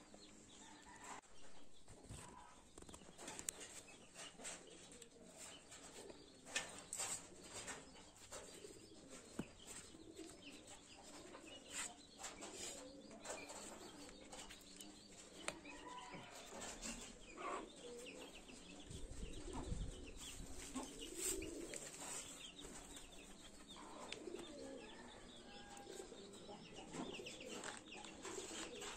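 Quiet rural outdoor ambience with birds calling and scattered faint clicks, and a brief low rumble about two-thirds of the way through.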